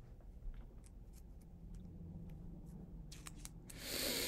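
Faint scattered clicks and light handling noise, with a quick run of clicks about three seconds in, then a short breathy sigh near the end.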